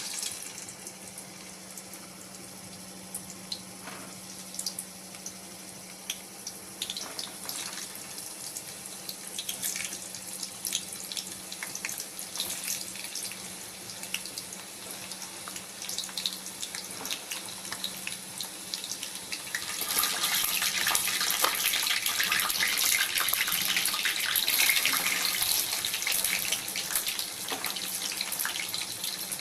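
Boiled potato chunks sizzling and crackling in hot oil in a kadai. The crackle grows clearly louder about two-thirds of the way through.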